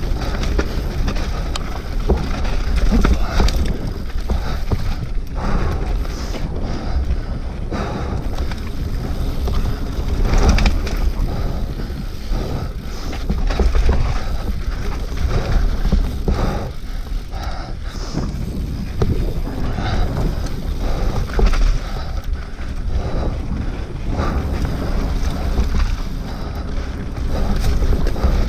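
Mountain bike descending a rough dirt trail at speed: wind buffeting the camera microphone, tyres rolling over dirt and stones, and frequent knocks and rattles from the bike over bumps.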